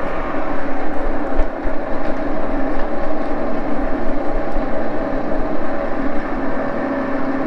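Baby Axelson engine lathe running, its spindle and headstock gearing giving a steady hum and whine, set to a reduced spindle speed of about 473 rpm.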